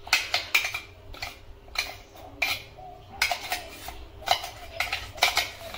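Stainless steel clinking and tapping, about two sharp metal knocks a second, as ground masala paste is tapped and scraped out of a steel jar into a steel bowl of raw chicken.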